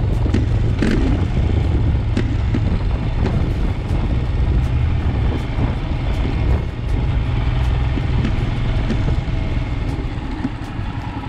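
Royal Enfield Himalayan motorcycle on the move, its single-cylinder engine running under a heavy low wind rumble on the microphone, with frequent short knocks and rattles as it rides from broken tarmac onto a gravel track.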